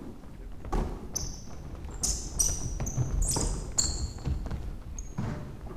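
Basketball shoes squeaking sharply on a hardwood court as players cut and stop, with scattered thuds of the bouncing ball and footfalls. The squeaks come in a quick cluster through the middle.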